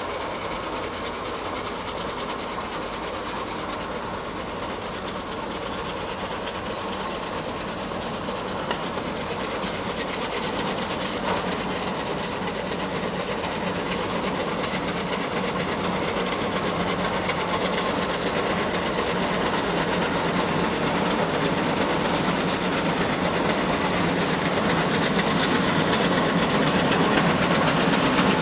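Fowler steam road locomotive climbing a steep hill under load, its exhaust chuffing in a steady rhythm and growing steadily louder as it approaches.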